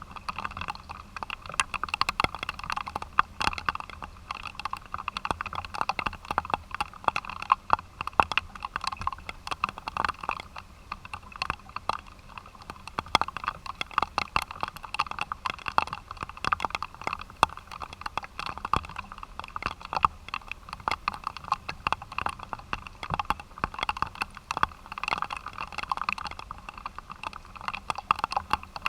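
Raindrops pattering on a hard surface close to the microphone: a dense, irregular stream of sharp ticks over a steady hiss.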